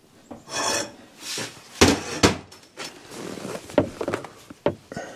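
Steel tube bracket being worked by hand: rasping scrapes, two sharp metal knocks about two seconds in, then lighter clicks and rubbing as gloved hands handle the tube.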